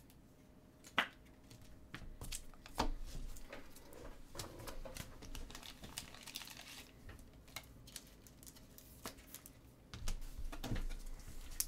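Trading cards being handled and set down on a table mat: scattered light clicks and taps with soft crinkling and rustling of cards and pack wrappers.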